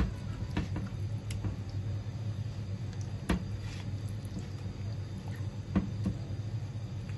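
A hand squishing and kneading chicken pieces in a thick spice marinade in a glass bowl, with scattered sharp clicks and taps against the bowl, two of them louder, over a steady low hum.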